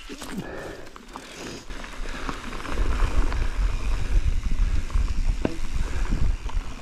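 Mountain bike rolling down a dirt trail: tyres on the ground and the bike rattling, with a few sharp clicks. About two and a half seconds in it grows louder as wind rumble on the microphone builds with speed.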